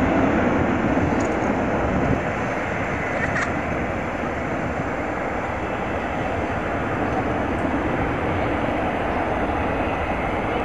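Boeing 737's CFM56 turbofan engines running at taxi power, a steady jet rumble and hiss that eases slightly in the first few seconds and then holds level.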